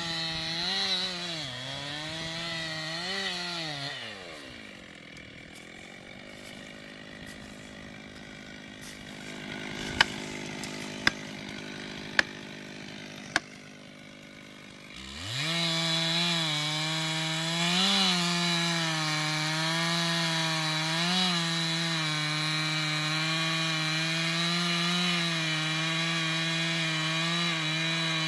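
Chainsaw cutting at full throttle, then dropping back to idle. While it idles there are four sharp knocks about a second apart. About halfway through it revs back up and runs steadily at full throttle, cutting wood with small surges in speed.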